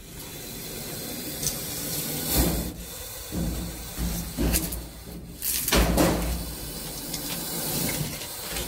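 Spectacled cobra hissing in several short, forceful bursts, a defensive hiss from a snake with its hood spread.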